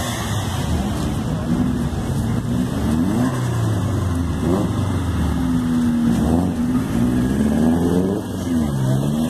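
Several modified cars driving off one after another, their engines revving and accelerating past, pitch rising and falling again and again with overlapping engines.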